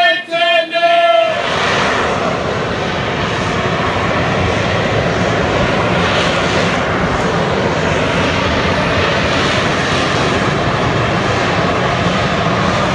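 Loud, steady noise of a jet aircraft's engines, starting about a second in and holding level without rising or falling.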